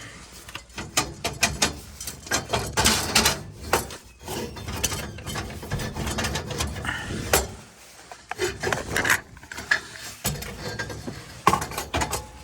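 Irregular metal clicks, clanks and scrapes of hand work on an old gas boiler's burner assembly.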